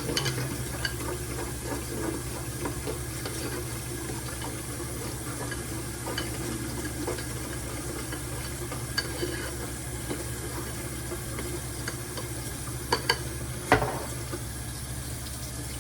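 Eggs frying in bacon grease in a pan: a steady sizzle with scattered small pops. A few sharper clicks come near the end.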